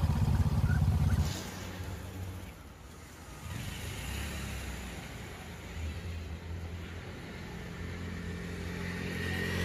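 Low hum of a motor vehicle's engine, loud for about the first second and then dropping to a quieter steady hum.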